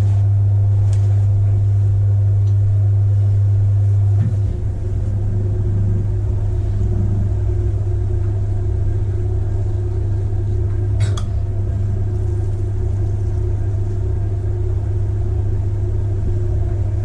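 Electric potter's wheel motor running with a steady low hum, which turns rougher and less even about four seconds in. A single short click about eleven seconds in.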